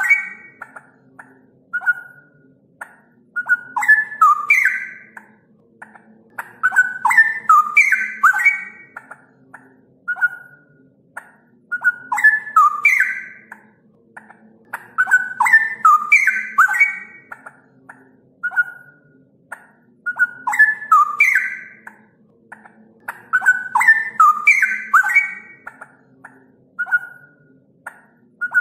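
Straw-headed bulbul singing: bubbling, whistled warbling phrases about one and a half to two seconds long, repeated roughly every four seconds, with short single whistled notes between them.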